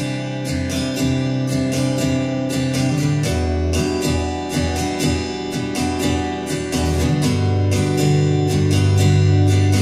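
Background music: a strummed acoustic guitar with a steady rhythm.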